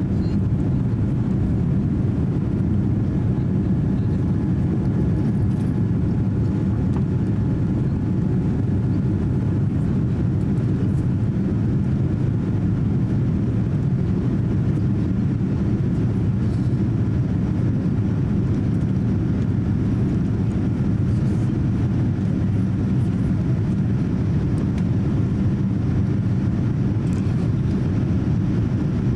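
Steady low roar inside the passenger cabin of a Boeing 787-8 climbing out after takeoff: the Rolls-Royce Trent 1000 engines and the airflow over the fuselage, even in level, with no changes.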